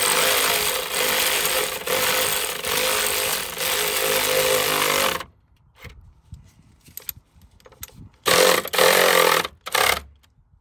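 Electric ratchet running, tightening a car battery's hold-down nut, with a steady motor whine. It stops about five seconds in, and a second short run of about a second comes near the end.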